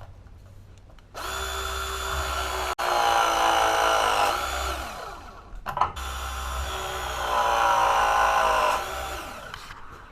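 Handheld power tool motor run in two bursts of about three seconds each, each winding down in pitch when it stops.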